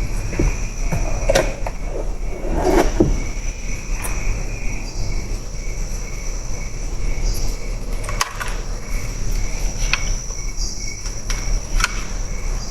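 Evening insect chorus with a steady, pulsing trill at two pitches, one mid-high and one higher. A few sharp clicks stand out over it.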